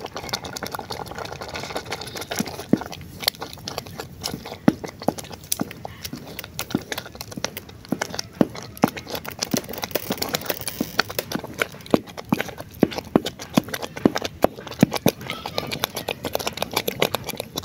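Wooden spoon stirring a thick pot of pumpkin leaves in peanut sauce, knocking and scraping against the sides of an aluminium pot in many quick irregular clicks.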